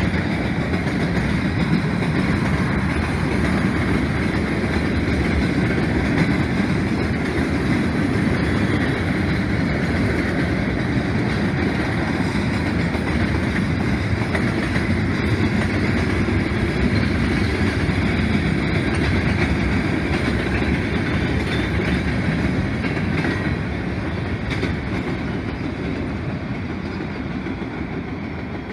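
Freight train of covered hoppers and autorack cars rolling past on the rails: a steady low rumble of wheels and cars that grows quieter in the last few seconds.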